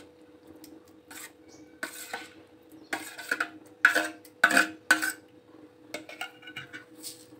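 Metal spoon scraping soft boiled raw-mango pulp off a steel plate into a plastic blender jar: a run of short scrapes and clinks of spoon on plate. A faint steady hum runs underneath.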